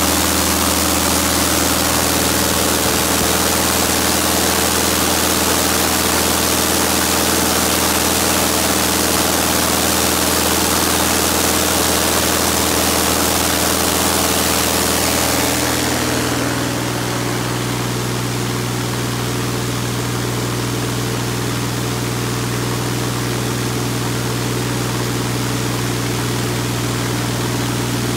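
UL Power UL520iS air-cooled flat-six aircraft engine running steadily at high power, about 2400 rpm, in a ground run-up, with a loud rush of propeller wash. Just past halfway the rushing hiss drops away and the engine's tone changes.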